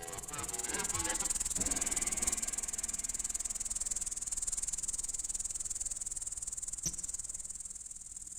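A steady high-pitched hiss, with faint wavering tones in the first two seconds and a single sharp click near the end.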